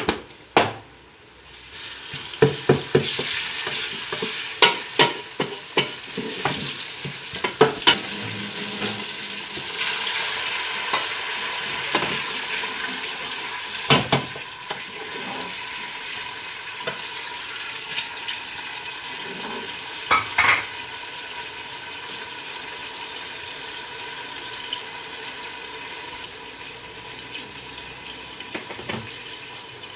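Sliced onions sizzling in hot oil in an aluminium pressure cooker, stirred with a long-handled ladle that knocks and scrapes against the pot. The sizzle grows louder about two seconds in as ginger-garlic paste goes in, then settles to a steadier, quieter frying hiss.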